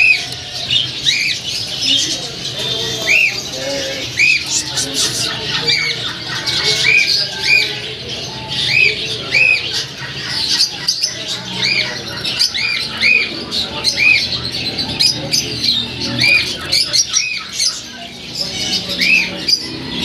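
Cage of small finches, Gouldian finch and Java sparrows among them, chirping without pause: short arching call notes repeating about once or twice a second over a busy chatter of higher chirps.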